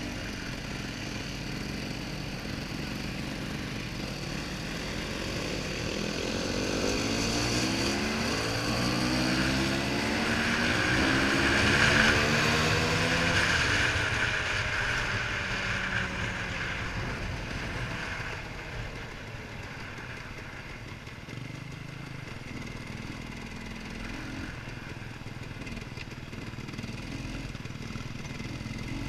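Dirt bike engine heard from the rider's own bike, accelerating up through the gears in a run of rising steps, loudest about twelve seconds in with wind rushing past the microphone. After that it eases off to a lower, steadier running sound.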